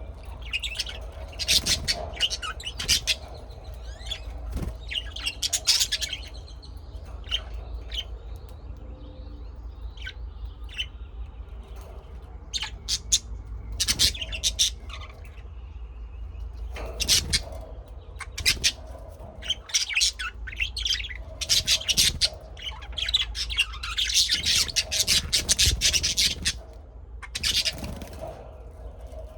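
Small birds chirping and squawking in quick bursts of short, sharp calls, several at once at times, over a low steady hum.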